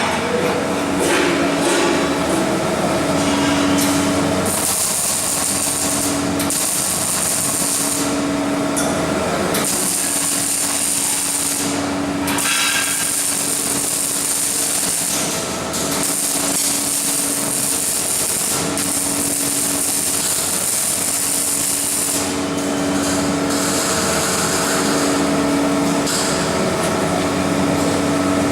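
Arc welding in a workshop: a steady crackling hiss that stops and restarts every few seconds as each run is laid, over a low machine hum that comes and goes.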